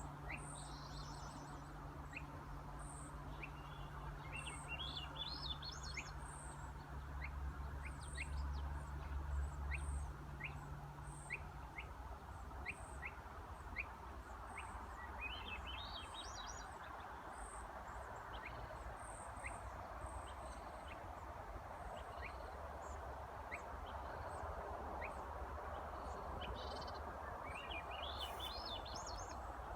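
Songbirds singing and chirping: runs of short high chirps and a few rising trilled song phrases, over a steady background rush.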